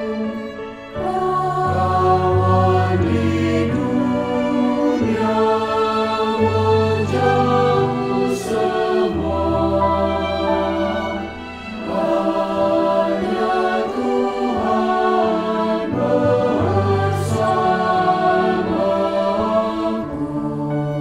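Male voice choir singing a slow hymn in Indonesian in sustained chords, with brief breaths between phrases.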